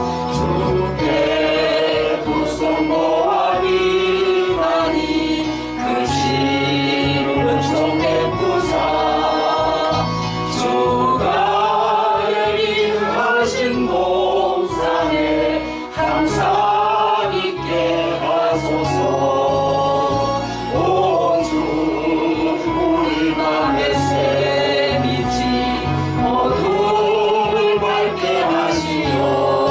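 A gospel hymn sung in slow phrases over an instrumental backing with a bass line and a steady beat of light percussion.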